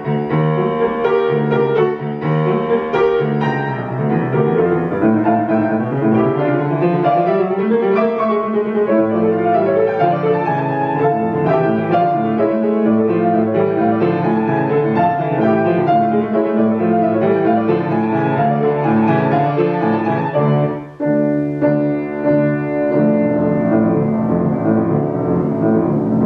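Solo grand piano playing a classical piece: a dense flow of notes, a brief break about three-quarters of the way through, then held chords ringing on.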